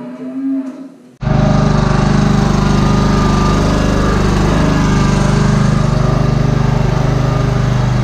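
Cattle mooing. About a second in, a loud, steady machine drone starts abruptly with a low, even hum and carries on unchanged.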